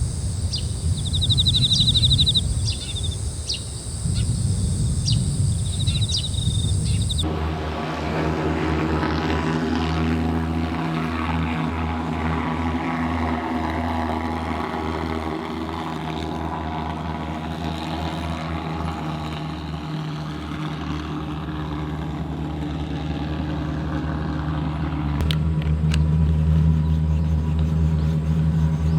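Small birds chirping over a low rumble, then, about seven seconds in, an abrupt switch to an engine running steadily at idle, which gets louder near the end.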